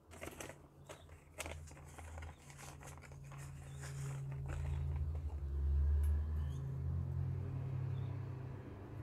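Plastic bag crinkling with small pebbles rattling inside as it is handled, in a few sharp crackles over the first couple of seconds. A low rumble then swells, loudest about two-thirds through, and slowly fades.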